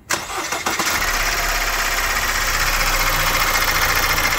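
Opel Insignia 1.6 diesel engine cranking and catching within about a second, then idling steadily. This idle is the engine noise that is being traced to a worn timing chain.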